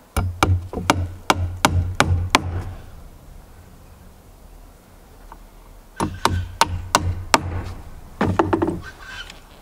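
Claw hammer driving twisted deck nails into a new timber deck board: a quick run of about eight blows, a pause of a few seconds, then about five more blows, with a few lighter knocks near the end.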